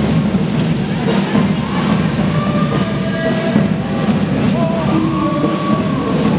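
Basketball game sound on a wooden court: a ball bouncing, with players' and spectators' voices, mixed with background music.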